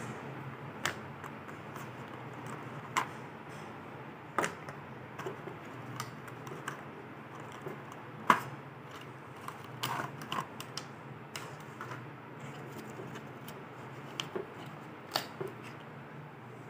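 Handling noise from smartwatch packaging: irregular light clicks and knocks as the plastic tray, strap and cardboard box are moved, with one louder knock about eight seconds in, over a steady low hum.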